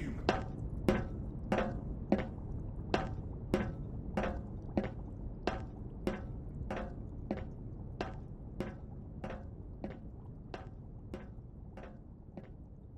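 Footsteps walking away at an even pace, about three steps every two seconds, over a low rumbling hum, fading steadily as they recede.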